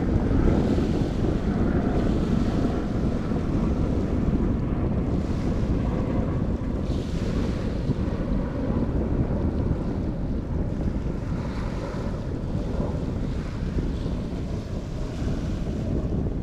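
Wind buffeting the microphone over a steady rush of waves, with soft washes of water that swell and fade every few seconds.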